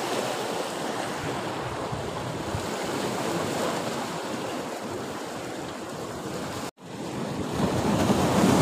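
Sea waves washing against breakwater blocks, with wind buffeting the microphone. The sound drops out completely for an instant about two-thirds through, then comes back louder.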